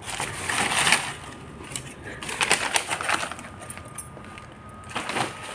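Cardboard box and bubble wrap being handled and moved, in short rustling, crinkling bursts three times. A faint steady high tone comes in about halfway through.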